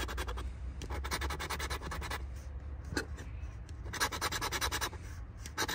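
Scratch-off lottery ticket being scraped with a handheld scratcher tool: rapid back-and-forth scraping strokes in bursts, easing off for about a second and a half midway, then picking up again.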